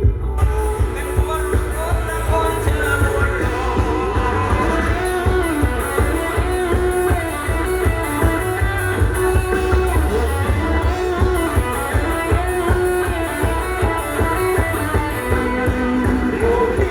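Band music led by guitar, with singing.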